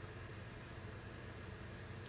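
Quiet room tone: a faint, steady low hum with no distinct handling clicks.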